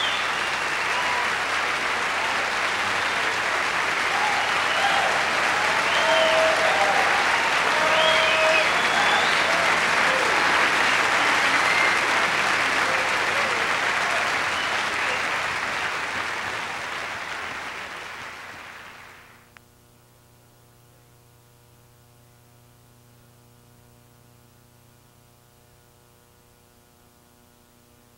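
Audience applauding, with a few cheers over it, fading away and cutting off about two-thirds of the way in. A faint steady electrical hum is left after it.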